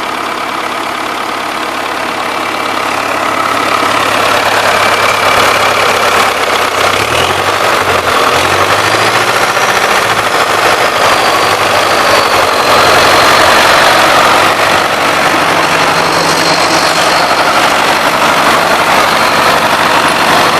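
DT-75M crawler tractor's SMD-18 four-cylinder diesel running near idle, with a knock that the owner puts down to a connecting rod, either the big-end bearing or the piston end, after a rebuild. It gets louder about three seconds in, and the engine speed wavers briefly around seven to nine seconds in.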